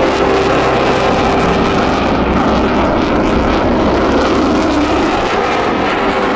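Loud, steady jet noise from the U.S. Navy F-35C Lightning II's single Pratt & Whitney F135 engine as it flies by, a dense rushing sound over the whole range.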